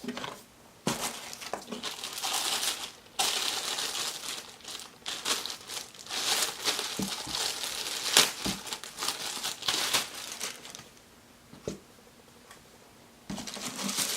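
Packaging crinkling and rustling as the hair dryer is pulled out of its wrapping, in irregular bursts with a few sharp clicks. It goes quiet for a couple of seconds near the end, then starts again.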